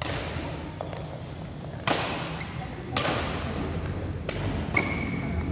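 Badminton rackets smacking a shuttlecock in a doubles rally: sharp hits about a second apart that echo in a large sports hall, with a short high squeak near the end.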